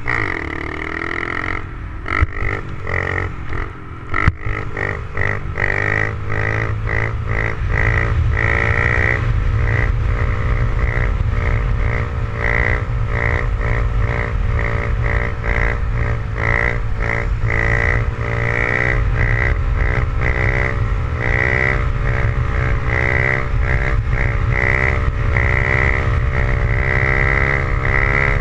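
Honda CRF70's small single-cylinder four-stroke engine held at high revs in second gear through a long wheelie, a steady drone that wavers slightly as the throttle is worked, with wind rushing over the helmet microphone. A few sharp knocks in the first few seconds, before the engine settles into a louder, steady pull from about eight seconds in.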